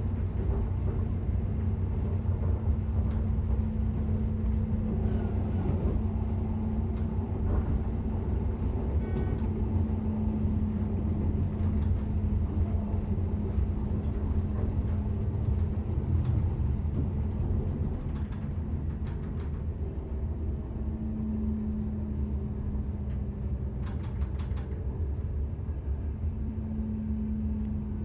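Diesel passenger train heard from inside the carriage while running along the line: a steady low rumble of wheels on rail with a held engine drone over it, and a few faint clicks.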